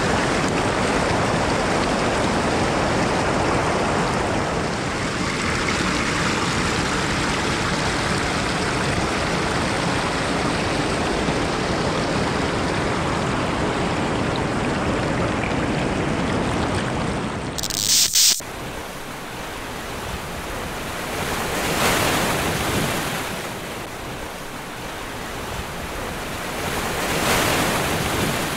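Fast river rapids and whitewater rushing steadily. About two-thirds of the way through, a short, loud burst cuts in. After it the water sound drops lower and swells up twice.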